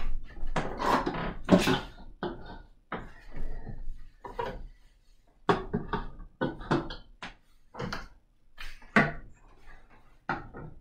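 Plastic bottles used as bowling pins being picked up and stood back upright on a wooden floor: a string of short, light knocks and clatters, with footsteps early on.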